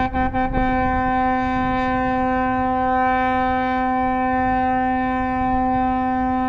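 The horn of the river cruise ship Mustai Karim sounding one long, steady blast, stuttering briefly in its first half second.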